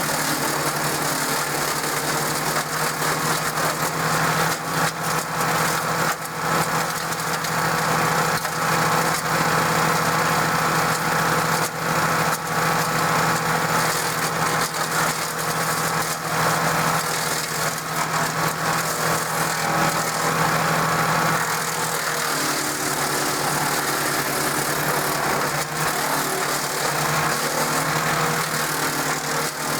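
DR 16.5 self-feeding wood chipper running steadily on its Briggs & Stratton engine, with scattered short sharp cracks through the engine noise.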